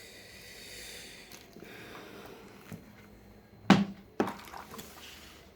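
Handling noise from objects being moved about on a table: a light rustle, then two sharp knocks about half a second apart, followed by a few smaller clicks.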